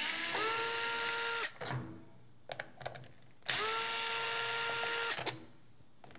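Cordless electric screwdriver running in two bursts of about a second and a half each, its motor whine rising as it spins up and then holding steady, as it backs Phillips screws out of a small portable TV's case. Light clicks of the tool and screws in the gap between bursts.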